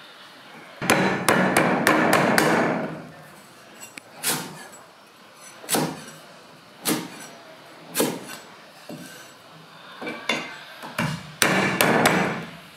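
Steel cleaver chopping lemongrass stalks on a thick wooden chopping block: quick runs of chops about a second in and again near the end, with single heavy chops roughly a second apart in between.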